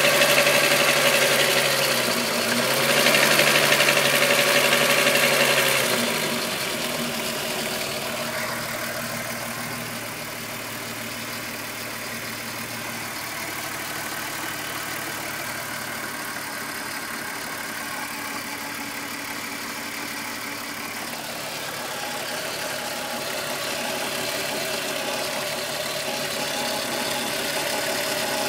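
VW Golf 2.9 VR6 engine blipped twice in the first few seconds, then idling steadily. The owner hears a rubbing timing-chain noise that got louder after the upper hydraulic chain tensioner was replaced.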